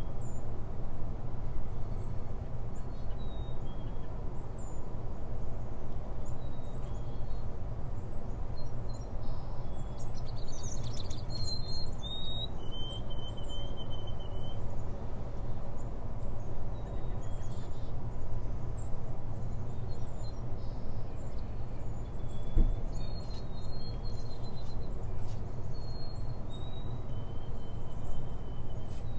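Steady low background rumble with small birds chirping now and then, in a cluster of short whistled calls about a third of the way in and another near the end.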